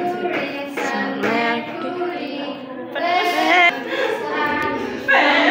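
A woman singing a simple song of the planets' names, with held notes and a wavering held note about three seconds in.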